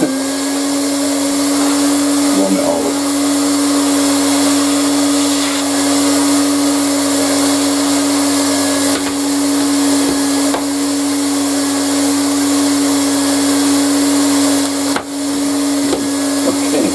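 Electric hot-air heat gun running steadily, its fan giving a constant hum over a hiss of blowing air, as a smartphone is held in the hot air to soften the adhesive under its glass. There is a brief knock about fifteen seconds in.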